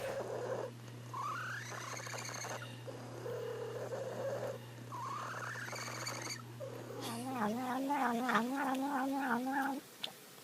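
A cat calling: two short rising calls, then a long wavering yowl in the last few seconds that stops abruptly, over a steady low hum.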